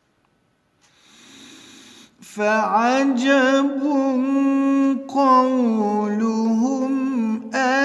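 A male reciter's Quran recitation: after a soft intake of breath, he begins about two seconds in a long melodic line, holding drawn-out vowels with ornamented turns in the tajweed style.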